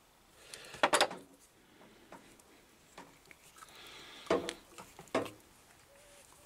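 Hand tools clinking and clattering on a wooden workbench as they are set down and handled: a sharp cluster of knocks about a second in, then two more single knocks later.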